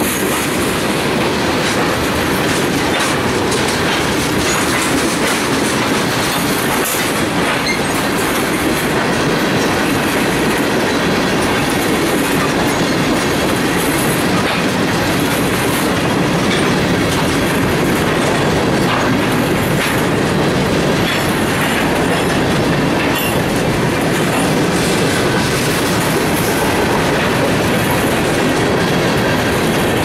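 Freight train cars (tank cars, then covered hoppers) rolling past at close range: a steady, loud rumble of steel wheels on rail with a rhythmic clickety-clack of wheels over rail joints.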